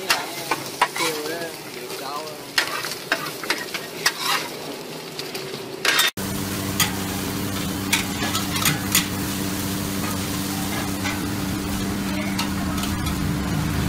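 A metal spatula scraping and clacking on a flat iron griddle while food sizzles. About six seconds in it cuts off sharply to a steady low mechanical hum with occasional clinks of a utensil in a wok.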